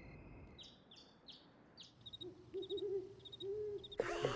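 Quiet night ambience: a few faint, short high chirps, then an owl hooting softly in low, wavering hoots in the second half. Near the end a loud cartoon character's voice suddenly breaks in.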